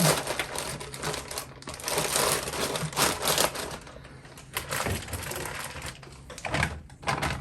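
Small plastic bags of cheese being handled and dropped into a plastic fridge bin, with irregular crinkling and light clattering in several bursts.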